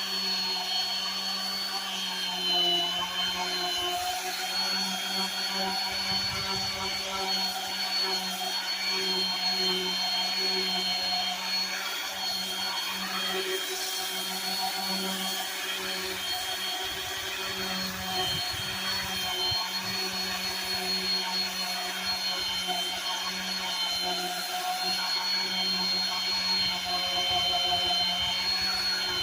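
Electric power sander running steadily against wood, a constant motor whine over the hiss of the abrasive, with small swells in level as it is pressed and moved.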